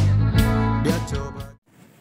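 Intro music, notes struck about twice a second, fading out about three-quarters of the way through.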